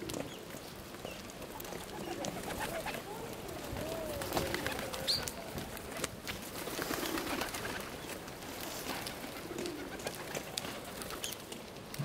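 Feral pigeons cooing several times in low, wavering calls, with light ticks and taps of beaks and feet pecking and walking on ice.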